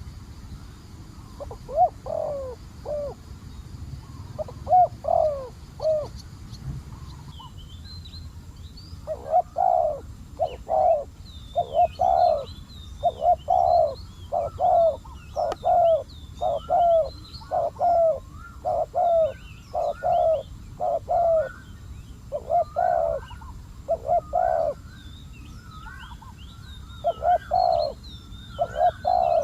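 Spotted doves cooing in repeated rolling phrases: a few short phrases about two and five seconds in, then an almost unbroken run of coos from about nine seconds on. Small birds chirp faintly and high above them from about eight seconds.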